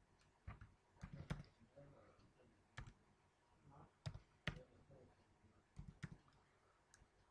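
Computer keyboard keystrokes: faint, irregular typing, about a dozen separate key clicks with short pauses between them.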